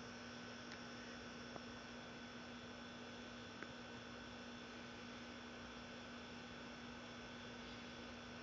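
Faint steady electrical hum over a low hiss, with two faint ticks in the first half.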